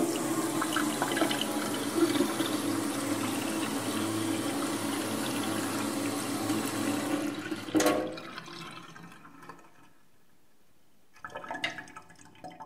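Water rushing steadily into a sink, starting abruptly and stopping with a knock about eight seconds in, then fading to a trickle. A brief clatter of small sounds follows near the end.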